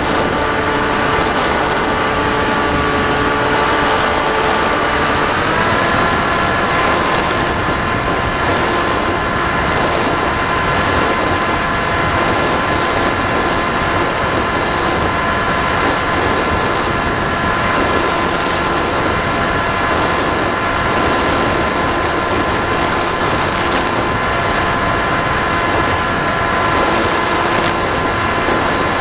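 Firstar 2000 FPV model plane's electric motor and propeller whining steadily, with wind noise over the onboard camera. About five and a half seconds in, the whine rises in pitch as the motor speeds up, then holds steady.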